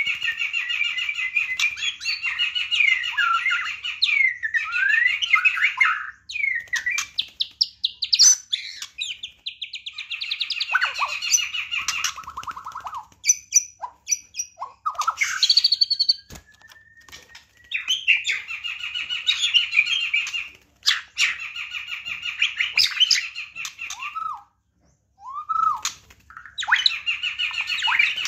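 White-rumped shama (murai batu) singing: long runs of rapid, chattering trills mixed with rising and falling whistled notes, with short breaks about six seconds in, around sixteen seconds and near twenty-five seconds.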